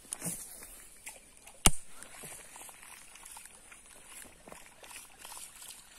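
Rustling and small clicks of handheld gear being handled, with one sharp click a little under two seconds in, over a steady faint high hiss.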